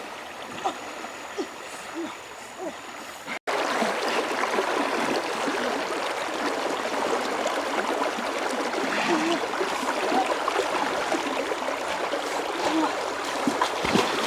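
River water running and splashing, with an abrupt cut about three and a half seconds in to a louder, steadier rush of water.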